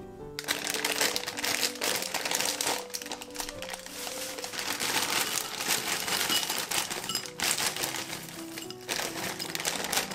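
Plastic bag of frozen cut spinach crinkling as the frozen leaves are shaken out into a glass bowl, starting about half a second in, over background music.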